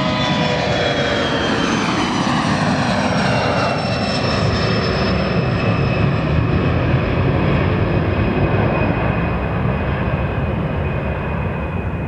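Bombardier CRJ-200's two GE CF34 turbofans at takeoff power as the jet climbs away: a loud, steady jet roar with whining tones that fall in pitch as it passes, easing slightly near the end.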